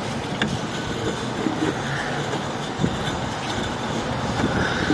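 Sewer inspection camera push cable being fed down a drain line, a steady rattling rumble with faint ticks as it pushes easily through.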